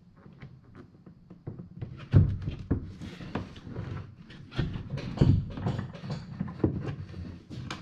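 Irregular light knocks and taps of handling against a wooden boat seat and hull, about three a second, with a louder thump about two seconds in and another about five seconds in.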